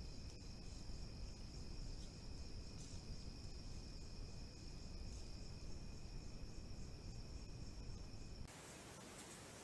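Night insects trilling: one steady high-pitched note with a fainter lower one and faint chirps, over a low rumbling background. It all cuts off abruptly near the end.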